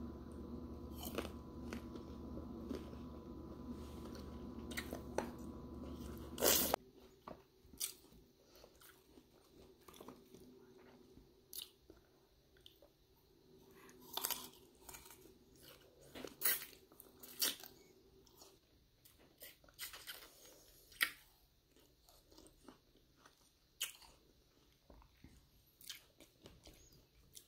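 Close-up crunchy bites and chewing of jocotes (small hog-plum fruits), heard as scattered crunches and mouth sounds. A steady hum runs under the first seven seconds or so and cuts off suddenly with a loud click.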